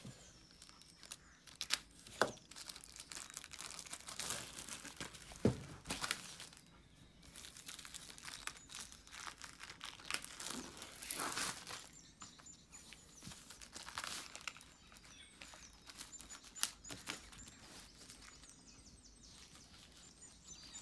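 Clear plastic shrink-wrap being handled and peeled off a large hardcover book: irregular crinkling and crackling in bursts, with sharp clicks and quieter stretches in between.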